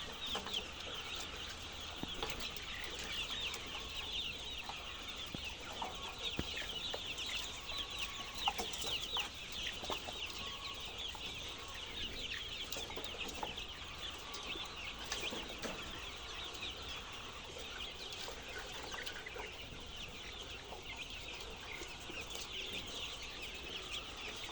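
A flock of chickens calling, with many short high calls overlapping continuously.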